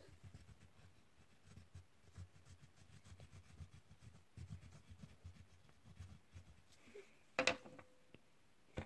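Oil pastel rubbing back and forth on paper in quick, faint strokes. About seven seconds in there is a sharp knock with a brief ring, then a short click near the end.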